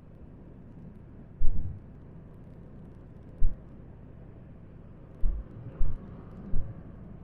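Motorcycle ride heard on an action camera's microphone: a steady low rumble of engine and air, broken by five brief, loud low thumps, the first about a second and a half in and four more close together in the second half.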